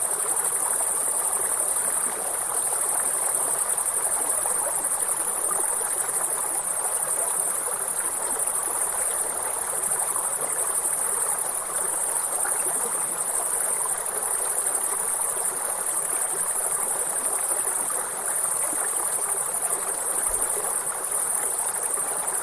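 A river flowing steadily with a continuous high-pitched insect chorus over it.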